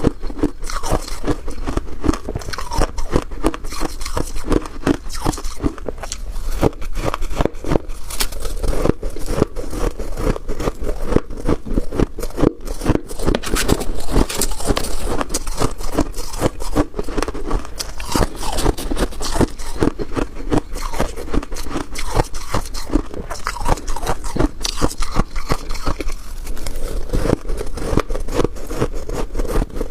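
Close-up crunching and chewing of freezer frost, with dense, irregular crisp bites and scrapes of the soft, snowy ice.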